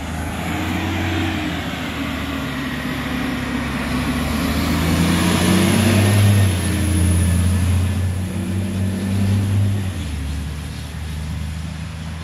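Fire engine's diesel engine running as the truck drives past, a deep steady rumble that grows loudest about halfway through and eases off near the end.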